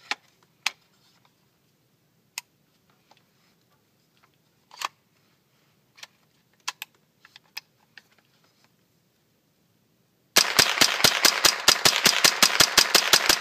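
Smith & Wesson M&P 15-22 semi-automatic .22 LR rifle fired in a fast string, about seven shots a second, starting about ten seconds in, the rifle cycling round after round from its 30-round magazine. Before that, a few scattered sharp clicks.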